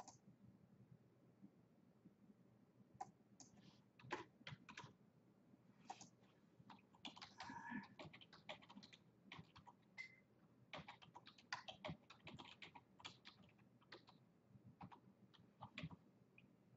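Faint computer-keyboard typing: irregular runs of quick key clicks with short pauses, starting a few seconds in.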